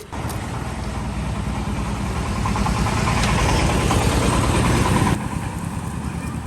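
An engine running with a low rumble. It starts suddenly, grows louder for a few seconds, then drops sharply about five seconds in.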